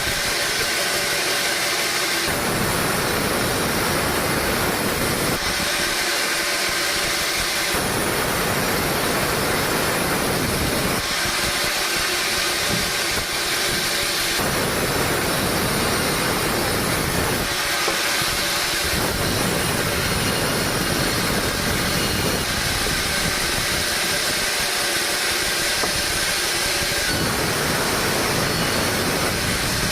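Sawmill saw running steadily with a constant hiss, its sound filling out about five times for a few seconds each as it cuts through short logs.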